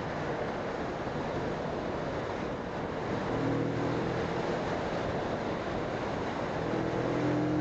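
Wind rushing over the microphone on a moving motorcycle, with the Moto Morini Seiemmezzo's 650cc parallel-twin engine note coming through at a steady pitch from about three seconds in, briefly fading and then returning near the end.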